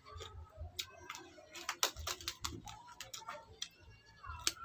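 Close-up crunching and chewing of raw cucumber: a run of crisp, sharp clicks, busiest around two seconds in.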